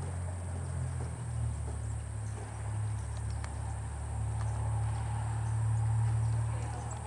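A steady low rumble under a constant thin, high chirring of insects, with a few faint hoofbeats from a horse trotting on soft arena sand.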